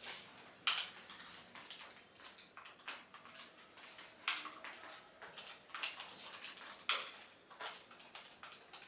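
Faint, irregular sharp clicks and light taps, about one a second.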